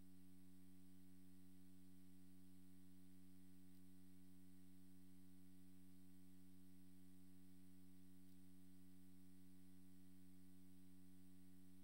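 Near silence with a faint, steady electrical hum: a pitched buzz made of several even tones that never changes, over a light hiss.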